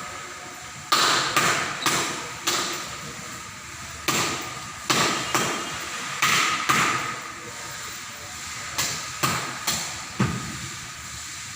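About a dozen irregular sharp knocks, each ringing briefly and fading within about half a second, over a faint steady hiss.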